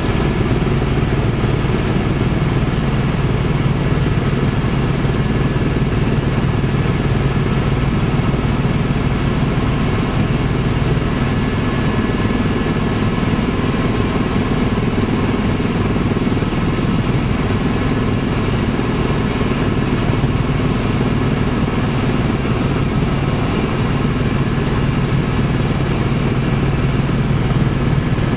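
Steady, loud drone of a tour helicopter's turbine engine and rotor, heard from inside the cabin in flight.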